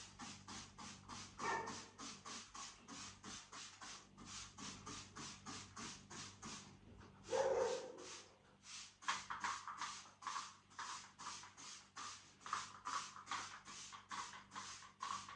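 Cloth wiping over a mirror in quick, even back-and-forth strokes, about three a second. There are two louder, lower sounds, about a second and a half in and again about halfway through.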